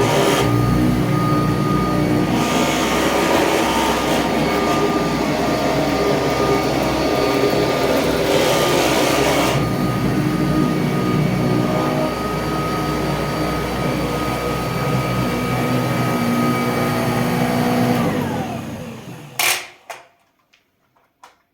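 Kirby Tradition upright vacuum cleaner running on carpet with a steady whine, rattling at the loose joint between handle and machine. Near the end it is switched off and the motor winds down with a falling whine into silence.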